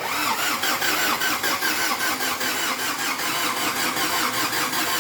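Mazda WL four-cylinder diesel engine being cranked over by its starter motor, turning steadily with an even pulsing rhythm but not catching: a hard start, fuel not getting through.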